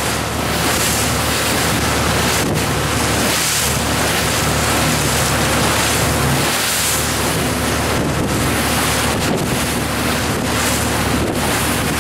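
Strong wind buffeting the microphone over the steady engine noise of a speedboat running fast across choppy water, with waves splashing.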